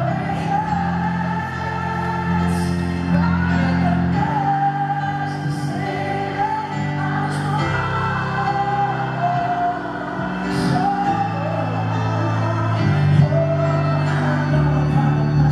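Male pop singer singing a slow soul ballad live into a microphone over sustained piano chords, amplified through a large arena's sound system.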